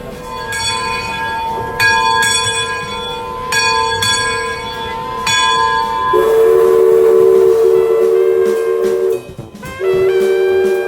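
The Mark Twain Riverboat's bell rung about six times in loose pairs, each stroke ringing on. Then its steam whistle sounds a steady two-note blast of about three seconds, and blows again near the end.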